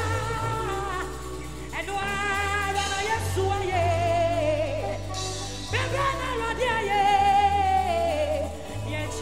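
A woman singing a gospel worship song into a microphone, with long, wavering held notes, over live keyboard and band accompaniment with steady low bass notes.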